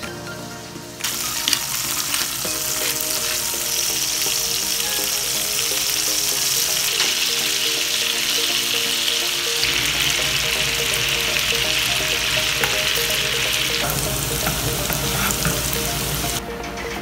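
Butter sizzling in a frying pan as baby potatoes, cherry tomatoes and asparagus fry and are stirred. The sizzle starts about a second in and drops away shortly before the end.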